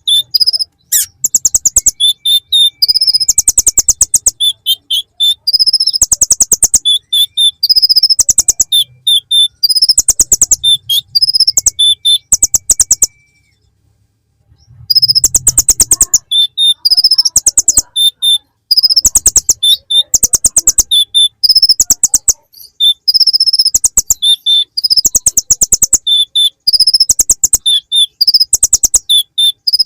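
Kolibri ninja (konin) sunbird singing a song packed with mimicked bar-winged prinia (ciblek) phrases: loud, rapid high trills repeated in short bursts, with a break of about two seconds near the middle.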